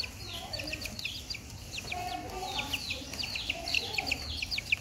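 Chickens peeping: a continuous run of short, high, falling chirps, several a second, with some lower clucking underneath.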